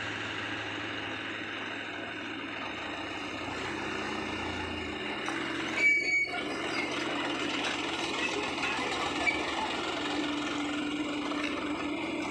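Diesel engine of a Komatsu PC75UU excavator running steadily under work, its note shifting a little partway through, with one brief, loud sharp sound about halfway through.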